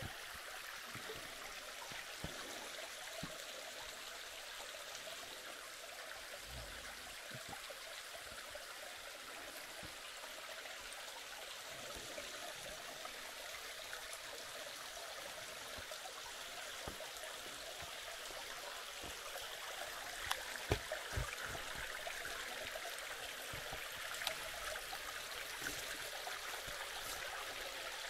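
Creek water flowing, a steady rushing with some trickling. Scattered soft knocks and clicks on top, a few stronger ones a little past two-thirds of the way through.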